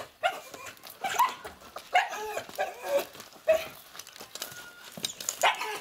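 Laika dogs yipping and whining: a quick run of short, high calls, about two a second, with a pause near the end.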